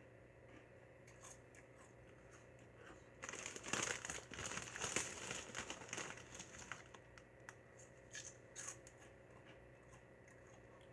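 Crinkling of a plastic snack bag of popped white-cheddar chips, handled for about three seconds starting some three seconds in, followed by a few light crackles.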